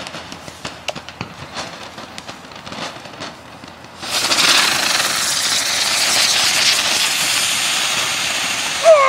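Ground fireworks going off: first a rapid run of small crackling pops, then, about four seconds in, a loud steady hiss as a fountain sprays sparks. Near the end there is a sharp pop and a falling whistling tone.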